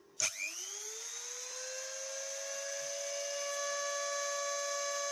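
Homemade CNC wood router's spindle motor switched on: a click, then a whine that rises in pitch as it spins up over a second or two and settles into a steady high whine at running speed.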